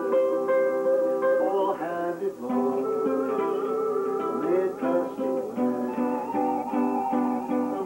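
Live instrumental music from plucked string instruments, with several notes sliding up and down in pitch.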